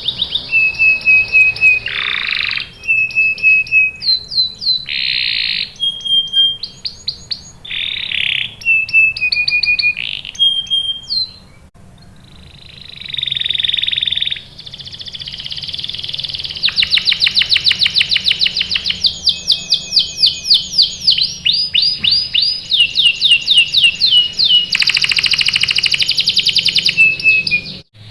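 Domestic canary singing: a varied song of fast trills and rolls, held whistled notes and quick repeated chirps, with a brief pause about twelve seconds in and a long, fast trill through much of the second half.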